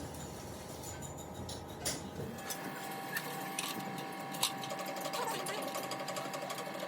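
A small machine running steadily, with scattered sharp metallic clicks; a low hum under it cuts out about two seconds in while a higher steady tone carries on.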